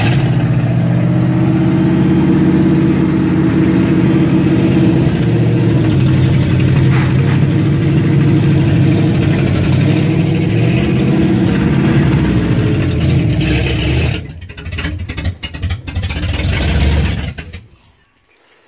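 Stuck Dodge truck's engine running at a held, raised rev. About 14 seconds in it starts to stumble, and near the end it cuts out as the engine stalls.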